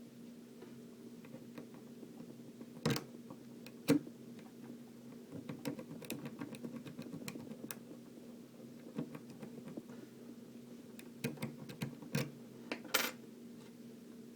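Scattered light clicks and taps of small hard objects being handled, a few sharper ones about three and four seconds in and a cluster near the end, over a steady low hum.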